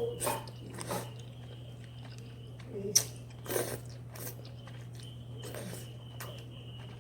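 A person chewing and eating spicy instant noodles, with a few short irregular mouth and utensil clicks (the sharpest about three seconds in), over a steady low hum.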